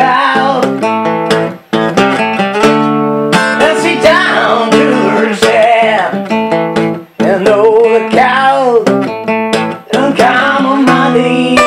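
Acoustic blues on a strummed acoustic guitar, with a steady rhythm of chords and bending, wavering melody lines over them.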